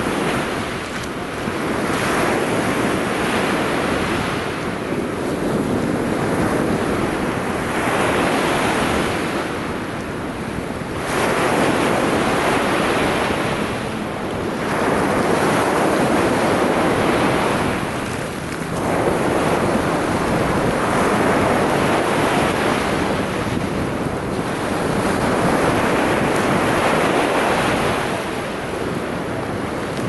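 Small Mediterranean waves washing onto the shore: a steady rush of surf that swells and eases every few seconds as each wave breaks.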